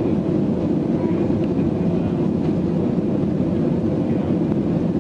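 Steady jet engine and airflow noise of a Boeing 737 heard inside the passenger cabin while climbing after takeoff, a deep, even rumble with no change in level.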